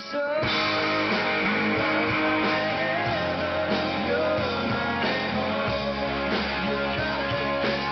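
Full rock band playing together in a sound-check run-through: guitars and a sung vocal line, coming in about half a second in.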